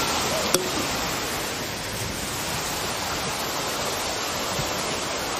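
Steady rush of tsunami floodwater, with a single sharp click about half a second in.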